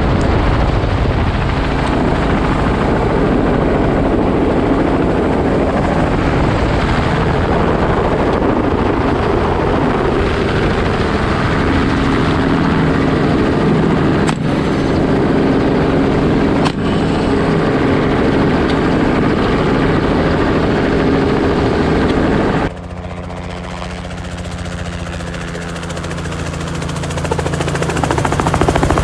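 Helicopter engine and rotor noise heard from on board, loud and steady with wind noise. About two-thirds through it cuts to a quieter helicopter heard from the ground, growing louder as it flies in low.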